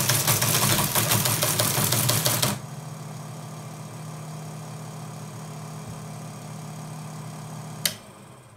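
Model 15 Teletype printing, a quick mechanical clatter of its typebars and printing mechanism over the motor's hum, until about two and a half seconds in, when the printing stops and the motor runs on alone with a steady hum. Near the end a single click as the machine is switched off, and the hum dies away.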